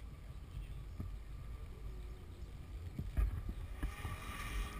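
A rally car approaching from a distance, its engine growing louder from about four seconds in, over a low wind rumble on the microphone.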